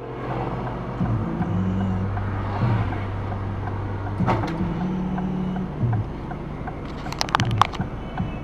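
Dashcam audio of a car driving: steady road and engine noise under a low tone that jumps between a few held pitches. A single sharp knock comes about four seconds in, and a rapid cluster of loud sharp knocks just after seven seconds.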